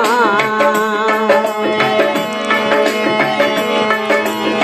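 Instrumental interlude of a Rajasthani devotional folk song: dholak drumming and manjira cymbals keep a steady rhythm under a held melody line and a steady low drone. The singer's last note wavers and fades in the first half-second.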